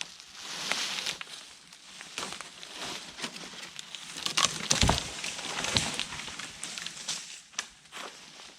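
Rustling and crackling of dry leaves and twigs, with many small snaps and two low thumps about five and six seconds in.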